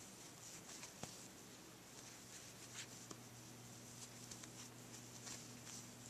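Near silence: faint soft ticks and scratches of a crochet hook pulling yarn through single crochet stitches, over a low steady hum.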